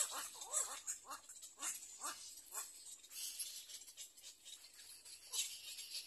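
Little egret chicks calling from the nest: a run of short, falling chirps about two a second that thins out after about three seconds, with one more near the end, over a steady high hiss.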